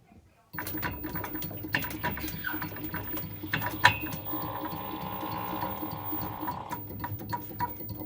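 Washing machine's direct-drive (DD) motor starting up and turning the drum, running with a steady hum, frequent clicks and knocks, and a higher whine from about four to seven seconds in.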